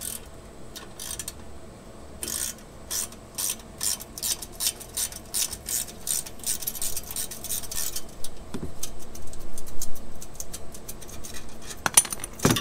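Metal clicking from a hand tool working the fastener on a car's exhaust tip to take the tip off, in quick uneven runs, with a couple of louder metallic knocks near the end.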